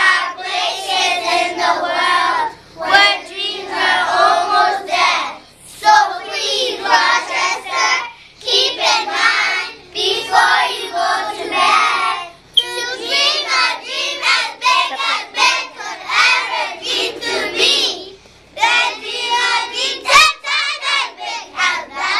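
A group of young children chanting a rhyming text together in unison, in a sing-song voice, phrase by phrase with short breaths between lines.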